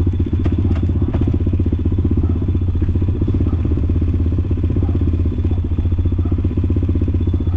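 Motorcycle engine running at a steady speed with an even, rapid pulse.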